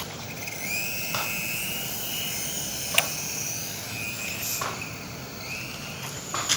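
Small electric motor and rotor of a toy remote-control helicopter whirring, a high whine that rises and falls in pitch, with a sharp click about halfway through.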